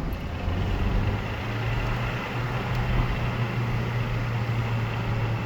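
Car engine running steadily with a rattle, which sounds like something loose.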